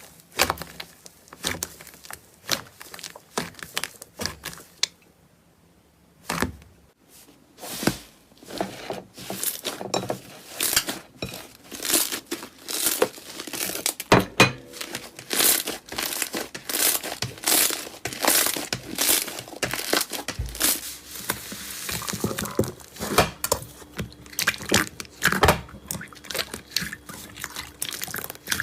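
Slime being squeezed and pressed by hand, giving a quick, irregular run of sticky clicks and pops. The clicking pauses briefly a few seconds in, then comes back denser and louder.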